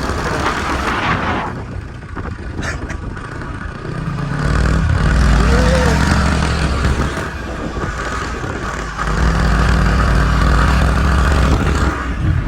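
Small scooter engine running under load on a rough track, over a steady rushing noise; the engine grows louder about four seconds in and again from about nine seconds in.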